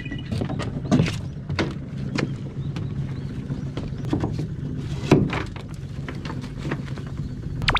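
Gill net being set over the side of a small fishing boat: irregular knocks and clatters as the net and its weights strike the boat, over the low steady hum of the boat's engine running slowly. The loudest knocks come about a second in and about five seconds in.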